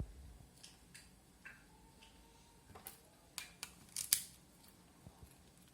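Small sharp plastic clicks and snaps from a Mazda 6 key fob being handled, a few scattered at first, then a quick cluster of louder clicks a little past halfway.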